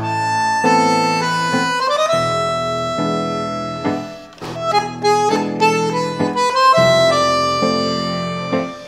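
Instrumental tango music led by bandoneon: held chords and melody notes, with a run of short detached notes about halfway through.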